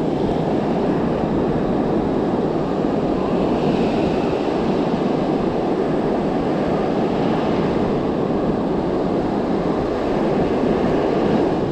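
Steady noise of surf washing onto a sandy beach, with some wind on the microphone.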